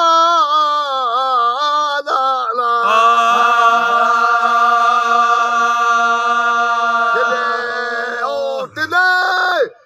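Unaccompanied male voice singing a Sindhi raag in the Kafi form. A wavering, ornamented phrase gives way, about three seconds in, to one long steady held note that breaks off near the end before a new phrase begins.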